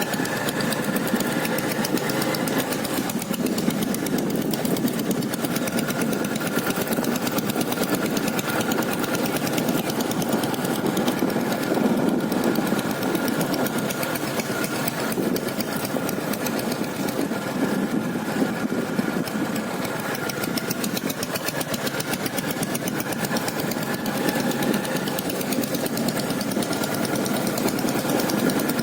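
Royal Enfield Taurus motorcycle's single-cylinder diesel engine running at a steady speed, its rapid firing even throughout without revving up or down.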